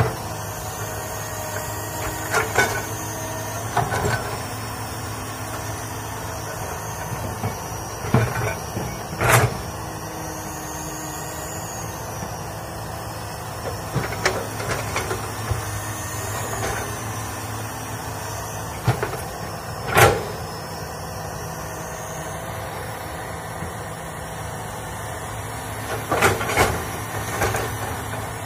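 Komatsu crawler excavator's diesel engine running steadily under working load, with a faint high whine rising and falling as the machine works. Sharp knocks and clanks from the bucket striking the ground break in every few seconds, the loudest about nine and twenty seconds in.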